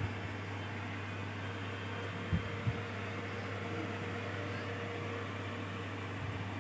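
Steady low electrical hum with faint hiss: background room noise. Two soft low thumps come close together a little over two seconds in.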